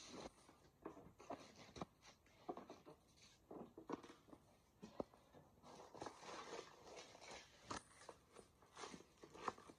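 Faint crinkling of cellophane bags and rustling of cardboard as bagged plastic trays are handled, with a few light taps and clicks.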